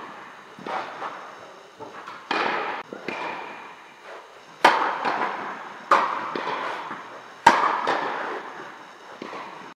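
Tennis balls struck by rackets on an indoor court, each hit a sharp crack that echoes through the hall, with lighter ball bounces between. The three loudest hits come in the second half, roughly a second and a half apart.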